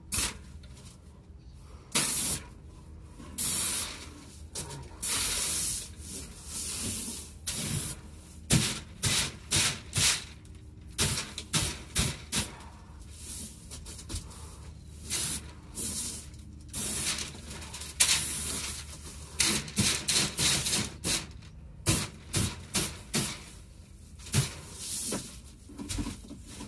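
Handheld paint spray gun spraying primer in short passes: loud bursts of hiss, from brief spurts to about a second long, switching on and off over and over as the trigger is pulled and released.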